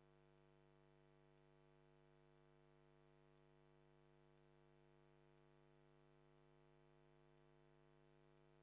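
Near silence: only a faint, steady electrical hum with many even overtones and no other sound.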